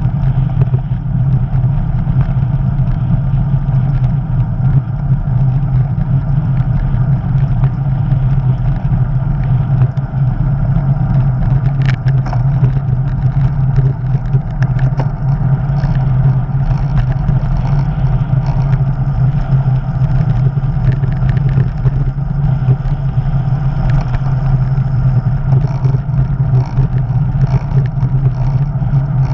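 Steady low wind rumble on the microphone of a bicycle-mounted action camera, mixed with the hiss of tyres on the asphalt while riding along at speed.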